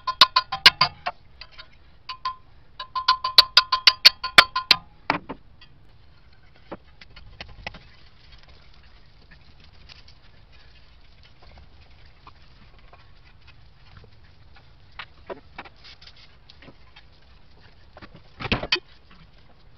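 Hammer striking a wrench to break loose the bolts holding the fan to the water pump pulley: two quick runs of ringing metallic clanks in the first five seconds. Then scattered light clinks of the loosened parts being handled, and a short louder clatter near the end.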